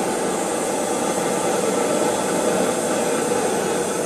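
BRS-3000T gas canister stove burning under a pot, a steady loud hiss. The owner finds this stove noisy and suspects something is wrong with it, as its flame distorts and burns poorly when turned up.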